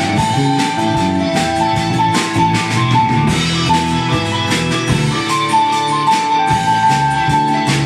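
Live band of drum kit, bass, guitars and keyboard playing an instrumental break of a country-style rock and roll song: a melody of held notes over a steady drum beat, with no singing.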